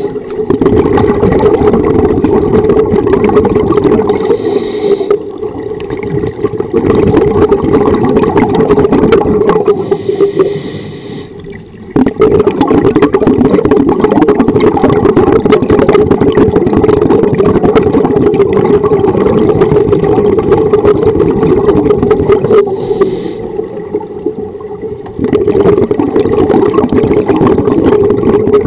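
Loud rushing and rumbling of scuba divers' regulator exhaust bubbles, heard underwater through the camera housing, easing off briefly three times.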